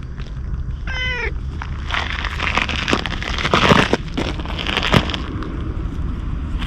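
Ginger stray cat gives one short meow about a second in. Then come loud rustling and scraping noises close to the microphone while it is being petted, over a steady low rumble.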